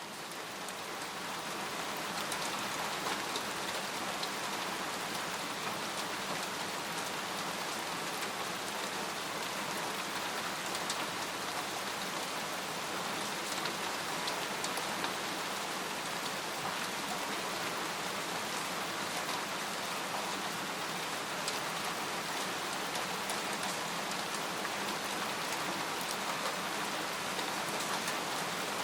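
Steady rain falling on a tent, with single drops ticking here and there over the even patter. It fades in over the first couple of seconds.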